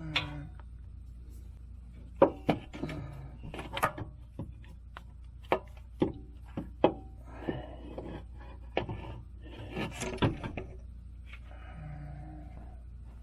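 Hand tools and metal parts knocking and clinking, a dozen or so sharp knocks spread irregularly, with two short stretches of scraping or rubbing, as the starter of a 1997 Ford Mustang is being worked on.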